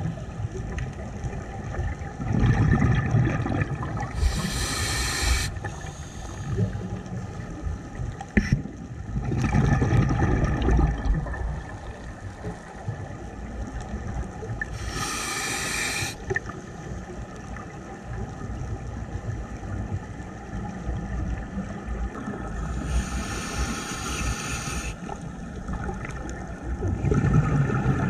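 Scuba diver breathing through a regulator underwater: three breaths, each a hiss as air is drawn in and a low rumble of exhaled bubbles, several seconds apart.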